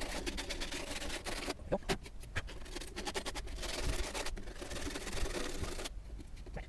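Coarse 60-grit sandpaper rubbed back and forth by hand over a hole-saw cut in PVC pipe, a rasping scrape in quick repeated strokes, deburring the rough edges. It pauses briefly about a second and a half in and again near the end.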